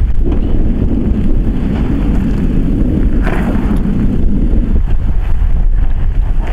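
Loud low rumble of wind buffeting the microphone, over an off-road vehicle's engine running; the rumble eases a little about five seconds in.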